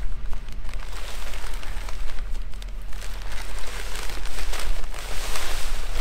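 Salt pouring from a plastic bag into the hopper of a walk-behind broadcast salt spreader: a rain-like hiss of grains rattling down, with the bag crinkling, heavier around two seconds in and again near the end. A steady low rumble runs underneath.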